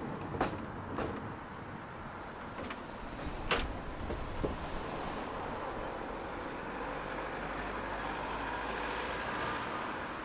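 Electric tram rolling slowly along its track, its wheels clicking sharply over the rail joints several times in the first four or five seconds, then running on with a steady hum.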